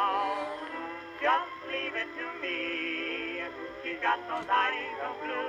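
Background music: a man singing a love song with a wavering vibrato over instrumental accompaniment, holding one long note about halfway through.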